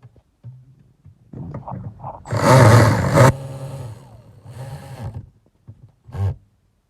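A cordless power tool runs in bursts, driving in the 10mm bolts that hold the amplifier under the driver's seat. There is one loud run of about a second, then a weaker shorter one, and a brief blip near the end.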